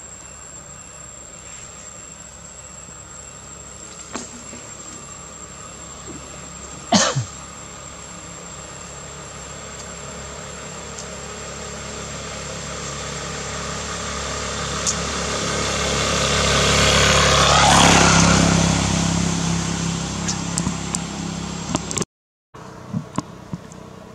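A motor vehicle passing by: its sound builds slowly over several seconds, peaks about eighteen seconds in with a drop in pitch as it goes past, then fades. A single quick falling whistle is heard about seven seconds in.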